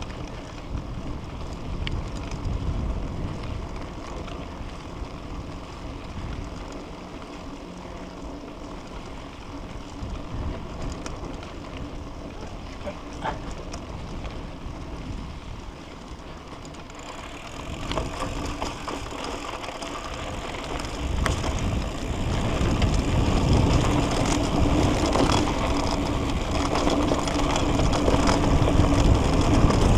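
Mountain bike ride noise: tyres rolling on a dirt trail, wind on the microphone and the bike rattling over bumps. It gets louder and rougher about two-thirds of the way through as the ride moves onto rough forest singletrack.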